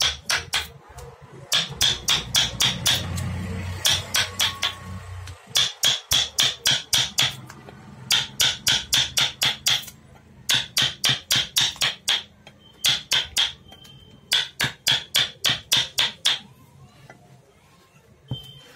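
A hammer tapping rapidly in short bursts of several quick strikes, about five or six a second, with brief pauses between bursts; each strike has a slight ring.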